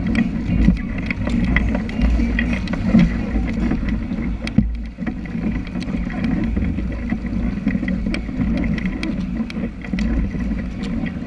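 Water splashing and slapping against the bow of a sea kayak paddled at race speed, in short irregular splashes over a steady low rumble of wind on the microphone.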